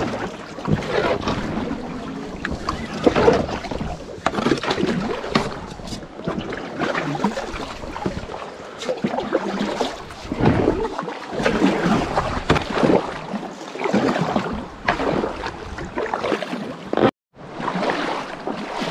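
River water splashing and sloshing around a person moving through it, in irregular surges every second or two.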